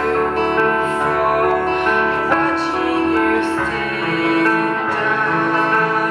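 Music: a voice singing over instrumental accompaniment, with sustained notes.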